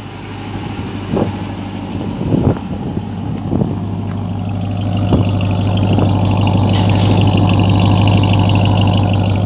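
Pickup truck's engine idling with a steady low hum, growing louder about halfway through and heard close at the exhaust tip near the end. A few light knocks sound in the first half.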